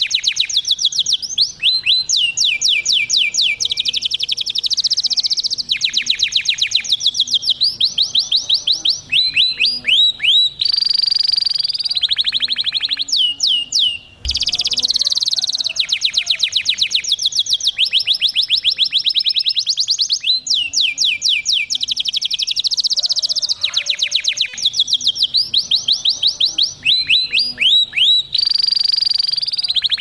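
A male domestic canary in full, excited song: high-pitched rolls and trills of rapid repeated notes, switching to a new phrase every second or two, with one short break about halfway through.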